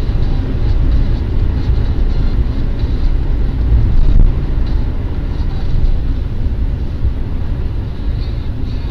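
Steady low rumble of a moving vehicle: road and engine noise, with no distinct impacts or tones.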